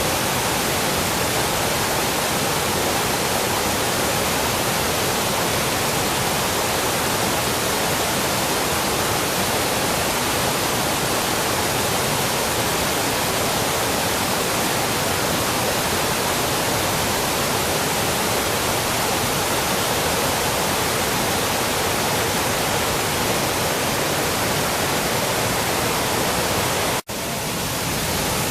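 Waterfall on a wide river pouring in heavy flow after recent heavy rain, a dense, steady rush of water. It cuts out for an instant near the end.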